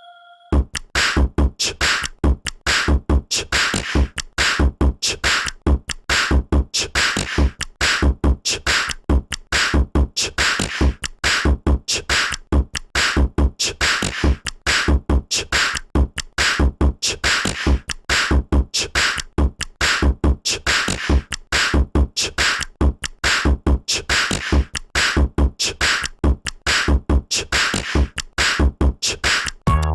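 An Android phone ringtone playing: a fast electronic drum beat with a heavy kick drum, looping steadily after starting about half a second in.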